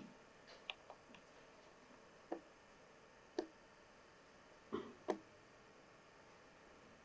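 Near-silent room tone broken by a few soft, irregularly spaced taps and clicks, the loudest three near the middle and toward the end.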